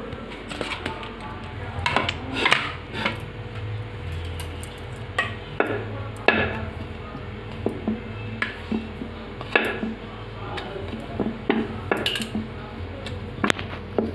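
Wooden rolling pin rolling out small discs of dough on a wooden board, with irregular sharp clacks and knocks as the pin and board are handled.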